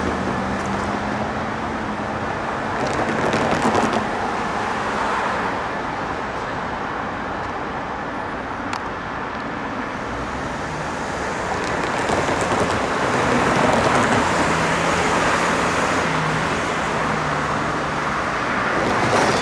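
Steady road traffic noise from passing cars, swelling a few seconds in and again past the middle.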